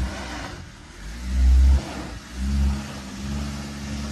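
Honda CR-V engine revving in repeated surges as the SUV claws up a steep, rutted dirt slope, with tyres crunching on loose dirt; the strongest surge is about a second and a half in.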